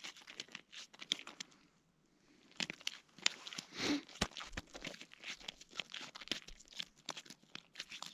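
Faint, irregular crackling and crunching clicks, with a complete dropout of about a second around two seconds in and a slightly louder burst near four seconds.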